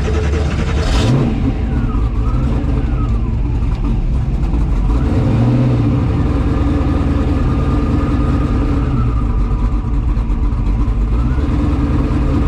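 Turbocharged drag-race car engine running just after being restarted, with a brief rise and fall of revs about five seconds in. The engine is being checked for oil pressure, which is running low, suspected to be from worn bearings.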